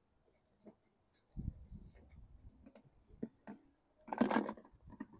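Faint handling noises: scattered small clicks and a soft rubbing or scraping, then a brief louder rattle about four seconds in.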